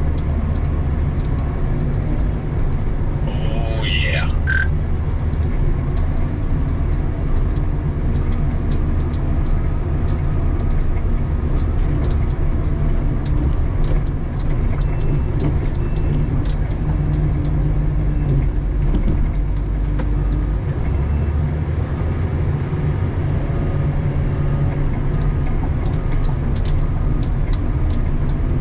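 Doosan DL250 wheel loader's diesel engine running steadily under load, heard from inside the cab while it pushes snow with a sectional plow. Its low drone shifts about two-thirds of the way through. A brief high chirping sound comes about four seconds in.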